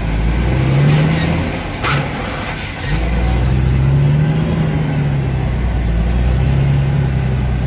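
Truck engine heard from inside the cab while driving a flooded, rutted dirt track, its pitch rising and falling in several swells as the throttle is worked, with a deep rumble underneath. A sharp knock comes about two seconds in, and the engine eases off briefly before pulling hard again about three seconds in.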